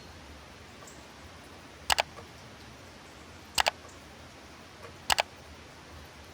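Steady hiss of light rain, broken three times by a sharp double click, each pair about a second and a half after the last.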